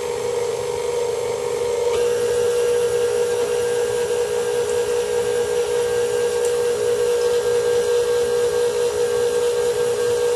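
An electric motor running steadily, a constant hum with a strong steady pitch that settles and gets slightly louder about two seconds in.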